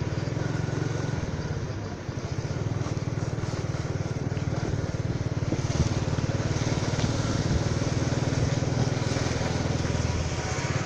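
Motorcycle engine running steadily while riding along a street.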